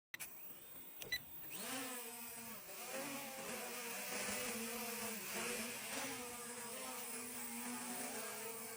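A small drone's electric motors and propellers: a couple of clicks, then the motors spin up about a second and a half in and settle into a steady buzz whose pitch wavers slightly.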